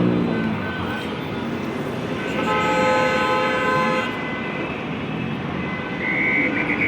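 City street traffic noise with a vehicle horn sounding once, held for about a second and a half midway, and another tonal sound starting near the end.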